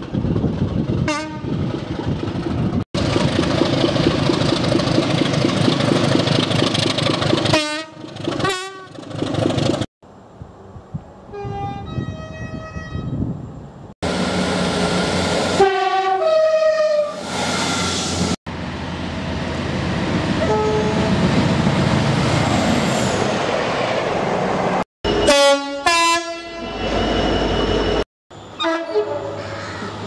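A run of separate short recordings of British trains sounding their horns as they pass, with the noise of trains running on the rails between the blasts. About halfway through, a South Western Railway Class 158 diesel multiple unit sounds its horn in a few stepped notes as it runs into a station.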